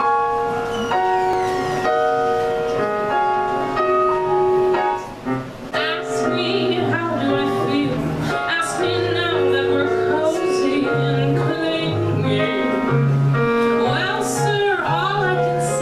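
Live cabaret music: a piano plays a short introduction of held chords, then about six seconds in a woman starts singing into a microphone over piano accompaniment with low bass notes.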